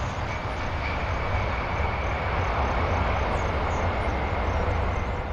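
Boeing 747 jet engines running with a steady low rumble and a faint steady whine as the airliner touches down and rolls out along the runway.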